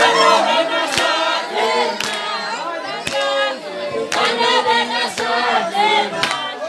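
A crowd of guests singing together, with a sharp beat about once a second.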